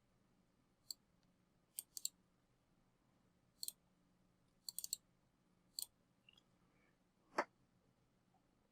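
Faint computer mouse and keyboard clicks, scattered and irregular, some coming in quick pairs or triples, with one louder, deeper click a little past seven seconds in.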